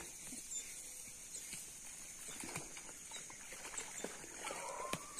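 Faint outdoor ambience: a steady high hiss with scattered small ticks and rustles, and a faint rising cry near the end.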